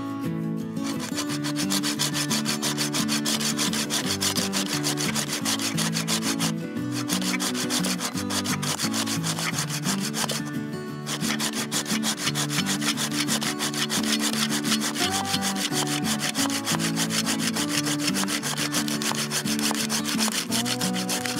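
The carbon-steel wood blade of a SOG Dual Blade hand saw cutting through a branch in quick back-and-forth strokes, pausing briefly twice.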